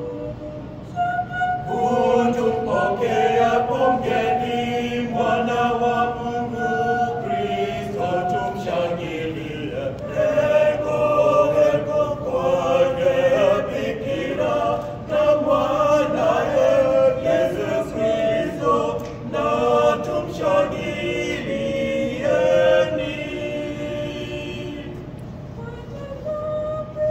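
Small mixed choir of men's and women's voices singing a Swahili Christmas song in several parts. The voices come in about a second in and ease off near the end.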